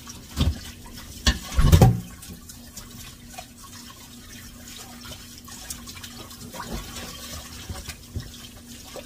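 Kitchen tap running into the sink while dishes are washed by hand. A few knocks of dishes in the first two seconds, the loudest just before two seconds in, then a steady run of water with a faint steady hum under it.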